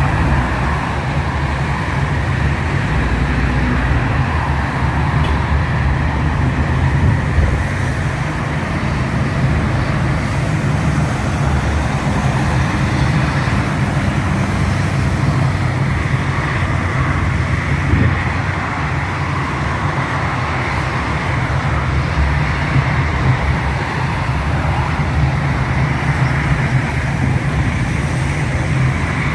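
Steady low rumbling noise of the road-traffic kind, even throughout with no distinct events.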